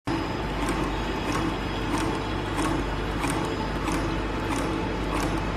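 Automatic Play-Doh screw extruder running: a steady mechanical hum with a light click repeating about every two-thirds of a second.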